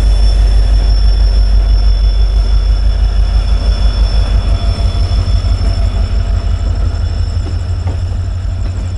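Passenger train moving out of the station yard, heard from aboard an LHB coach: a loud low rumble with a steady high-pitched wheel squeal over it, which fades near the end.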